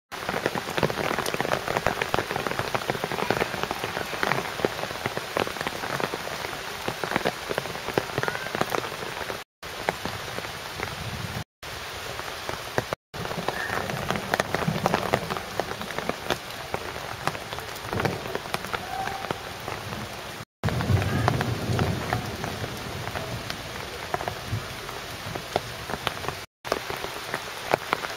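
Heavy rain falling, a dense hiss of countless drops pattering close by, with a low rumble now and then. The sound cuts out briefly several times.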